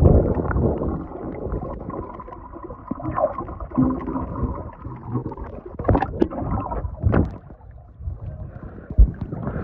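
Muffled bubbling and gurgling of water around a phone's microphone held under a swimming pool's surface, with a few sharp knocks, before it comes back up into the air near the end.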